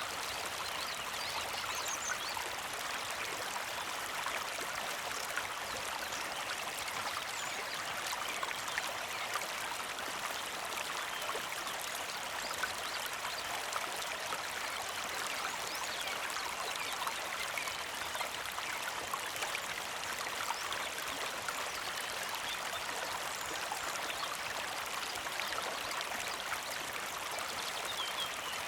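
Small mountain creek flowing steadily, water trickling and splashing over stones, with a few faint bird chirps now and then.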